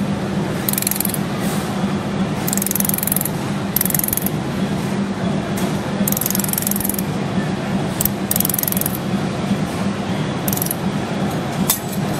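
Desktop pulsed laser welder firing bursts of rapid clicking pulses as it spot-welds stainless-steel channel-letter strips. The bursts start and stop irregularly, each lasting up to about a second, over a steady low hum from the machine.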